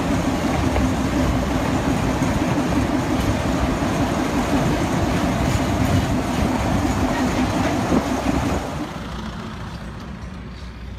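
Small diesel locomotive running along the track, heard from on board: a steady engine drone with running noise. About eight and a half seconds in, the sound drops abruptly to a quieter, steady vehicle rumble.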